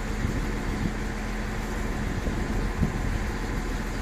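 Steady low drone of a diesel multiple unit's engine running, with a faint held tone above it.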